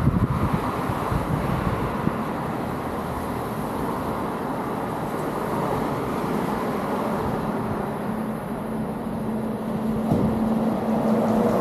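Steady low rumble of vehicles and road traffic. About ten seconds in, a steadier engine hum joins and the sound grows slightly louder.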